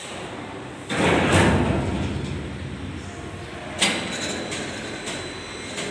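Heavy metal parts of a forklift torque converter assembly scraping and rumbling about a second in, fading over two seconds, then a sharp knock near four seconds and another at the end as the housing is worked into place.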